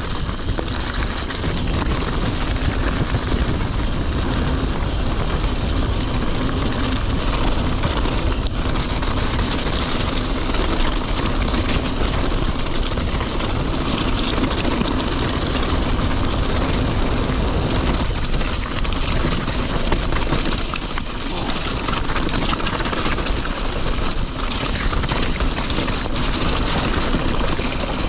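Mountain bike descending a rough, stony track: steady rumble of tyres over gravel and rock with the bike rattling, mixed with wind rushing over the microphone.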